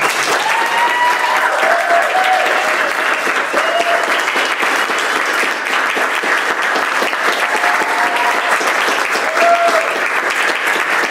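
Audience applauding, breaking out suddenly as the horn and piano piece ends and going on steadily, with a few short cheers from voices over the clapping.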